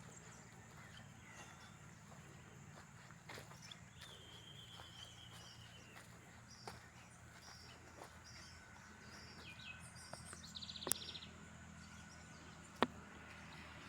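Faint countryside ambience: scattered short bird chirps and a brief trill over a steady low hum. Two sharp clicks stand out, one a little before the last few seconds and one near the end.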